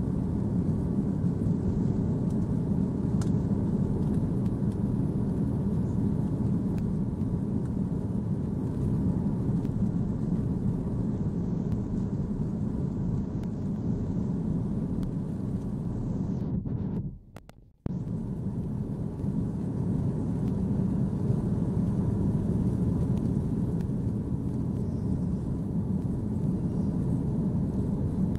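Steady low rumble of an Airbus A330-300's jet engines and airframe heard inside the passenger cabin as the airliner rolls out for takeoff. A little past halfway the sound drops out sharply for about a second and then cuts back in, like an edit cut.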